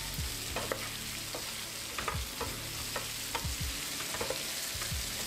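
Spatula stirring pieces of taro root as they fry in oil in a pan with no water, a steady sizzle under scattered scrapes and taps of the spatula against the pan.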